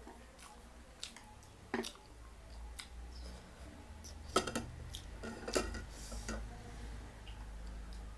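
Close-miked eating sounds: chewing, with several sharp clicks and clinks of utensils on dishes, the loudest about halfway through.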